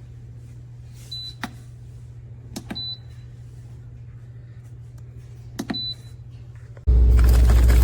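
Three short high electronic beeps, each with a sharp click like a button being pressed, over a steady low hum. About seven seconds in, a much louder noise cuts in suddenly.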